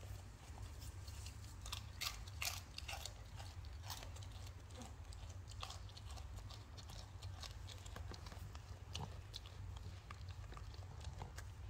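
A goat chewing corn chips, with crisp, irregular crunches and smacking of the lips, the crunching thickest about two to three seconds in.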